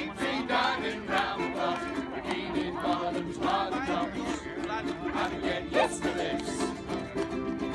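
A ukulele band playing: several ukuleles strumming a steady rhythm while a group of voices sings along.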